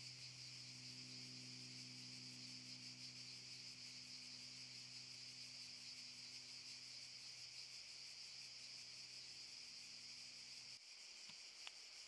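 A chorus of cicadas gives a continuous high-pitched, rapidly pulsing buzz. Under it runs a low steady hum that cuts off near the end, followed by a couple of faint ticks.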